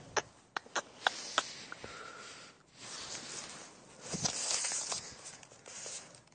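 A horse sniffing and blowing close to the microphone: several breathy puffs of about a second each, with a few light clicks in the first second or so.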